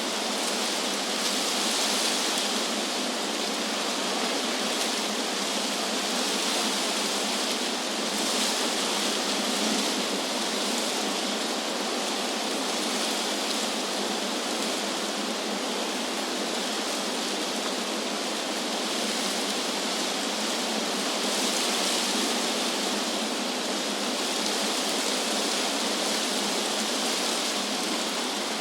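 Wind blowing through tree leaves: a steady rushing hiss that swells and eases gently a few times.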